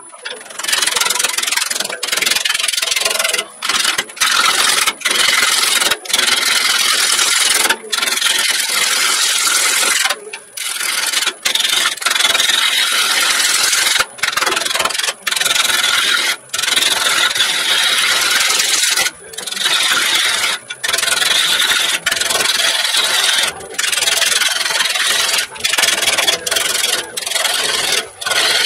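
Turning tool cutting into a spinning birch log on a wood lathe: a loud, rough scraping noise broken by many short gaps where the tool comes off the wood, played at three times speed.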